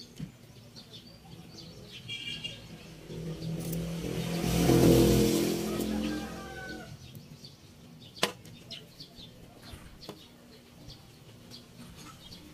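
A motor vehicle drives past, its engine rising to a peak and fading away over about four seconds, with the pitch dropping as it goes. A single sharp click follows a couple of seconds later.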